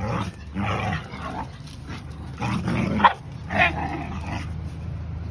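A pack of young dogs growling and yipping as they scuffle in rough play, in four short bursts with the sharpest about three seconds in.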